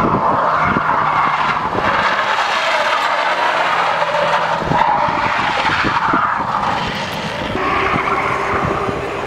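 Car tyres squealing on asphalt as a sedan slides sideways in a sustained drift, the squeal wavering in pitch, with the engine running hard underneath.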